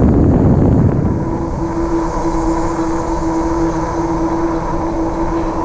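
Wind rushing over the camera microphone and fat tyres rolling on pavement while riding a RadRover e-bike, under a steady high whine from its geared rear hub motor.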